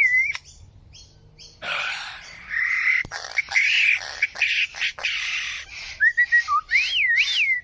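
A bird giving a continuous run of varied calls: harsh squawks and rapid chattering notes in the middle, with clear whistles that glide up and down at the start and again near the end.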